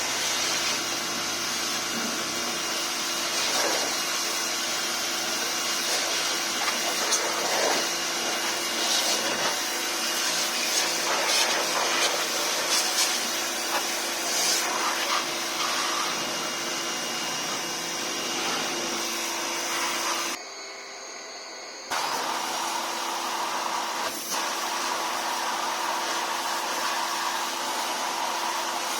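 Steady whirring, hissing machine noise with a faint whine, like a small high-speed motor running; it drops away abruptly for about a second and a half about two thirds of the way through, then resumes.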